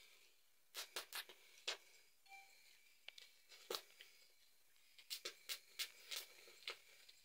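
Small fire of dry straw and sticks crackling: scattered sharp snaps, clustered about a second in and again between five and seven seconds.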